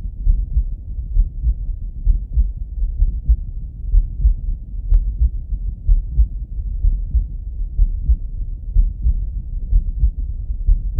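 A man's heart beating steadily, heard through a Littmann stethoscope: a low, muffled, regular pulse.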